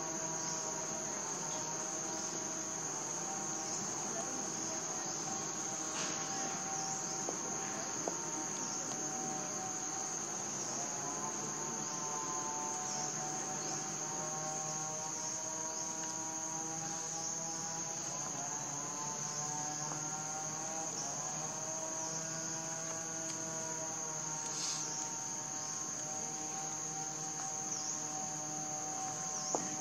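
Steady, high-pitched chorus of insects, crickets or cicadas, with fainter lower drones that slowly waver in pitch, and a few faint clicks.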